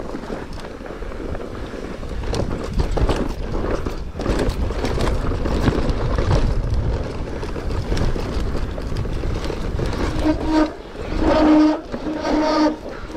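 Mountain bike descending loose, rocky singletrack at speed: a steady rumble of tyres on dirt with the bike rattling over rocks. From about ten seconds in, a humming whine comes and goes in short bursts.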